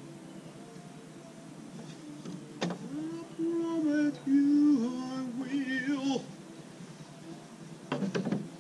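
A voice singing a short phrase of a few held notes that step up and down, lasting about three and a half seconds and opening with a sharp click. A brief burst of noise comes near the end.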